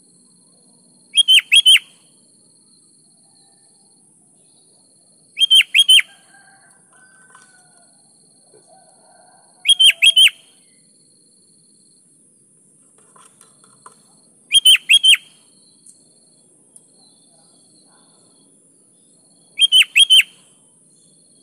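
Sooty-headed bulbul (kutilang) singing. It gives five short, quick phrases of three or four clear notes each, repeated every four to five seconds. This is the lively 'gacor' song used as a lure to get another kutilang to answer.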